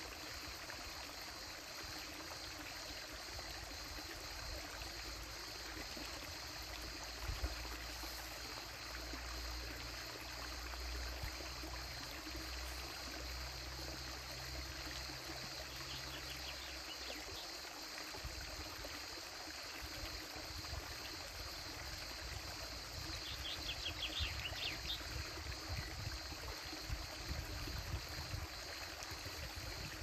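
Creek water trickling steadily, with crickets chirping throughout. A low drone comes in a few seconds in and fades out a little past the middle.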